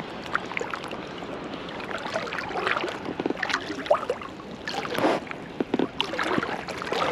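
Seawater lapping and splashing against a float tube, with many small irregular splashes as the water is churned beside it while the tube is moved against the drift.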